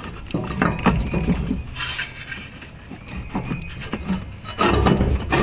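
Turbocharger being worked up off its oil drain line in a 6.0 Powerstroke engine bay: scattered scrapes and knocks of metal parts, with a louder clatter near the end.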